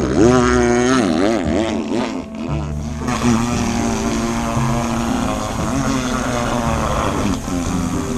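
Chainsaw engine revving up and down, then running steadily from about three seconds in as it cuts into a dead tree trunk.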